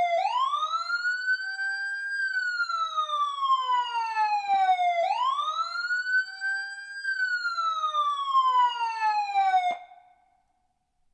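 Close emergency vehicle siren wailing: the pitch sweeps up quickly, then falls slowly, about five seconds a cycle, twice. It cuts off suddenly near the end.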